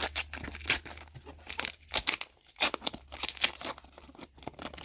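A trading-card pack wrapper being torn open and crinkled by hand, with cards shuffled out of it: irregular crackling and ripping throughout.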